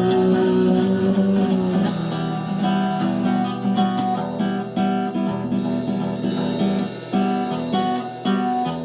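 Instrumental break in a song: acoustic guitar playing, a note held for about the first two seconds, then picked and strummed notes.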